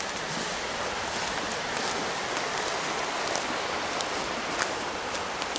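A rain-swollen stream rushing steadily over rocks, making an even wash of water noise, with a few scattered light ticks on top.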